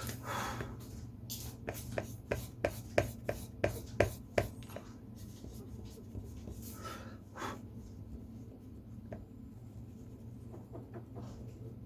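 Pen drawing on paper: scratchy strokes, with a quick run of about a dozen sharp taps between about one and four and a half seconds in, over a steady low hum.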